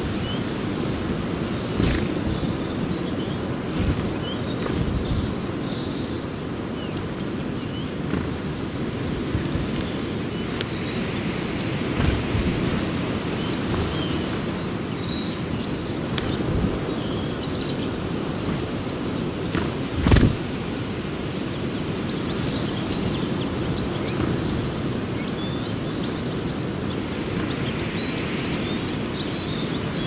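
A flock of birds at a feeding frenzy, chirping in many short, scattered calls over a steady low rumble. Sharp clicks and knocks come now and then, the loudest about two-thirds of the way through.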